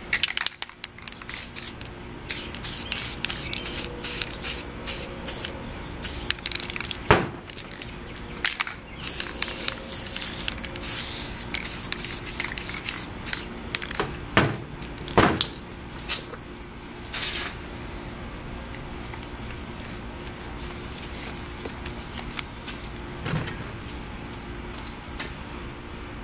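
Aerosol spray paint cans hissing in many short bursts, busiest in the first two-thirds and sparser later, with a few sharp knocks in between.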